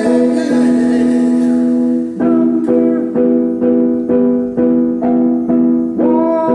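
Music on an electric keyboard: a chord held for about two seconds, then chords struck repeatedly, about twice a second.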